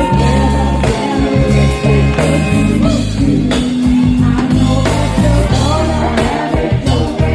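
Live band music with a singer, guitar and drums playing steadily.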